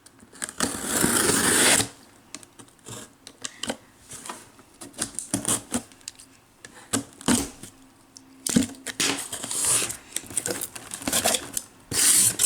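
Cardboard Hot Wheels shipping case being opened and unpacked: bursts of tearing and rustling cardboard, with scattered clicks and knocks as the carded toy cars are handled.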